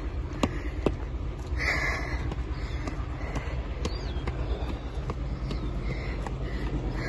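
Footsteps and shoe scuffs on stone steps during a climb, as irregular clicks and short scraping bursts, over a steady low wind rumble on the microphone.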